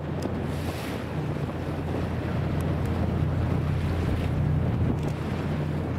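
Sightseeing boat's engine running with a steady low drone, with wind on the microphone and water noise from the moving hull.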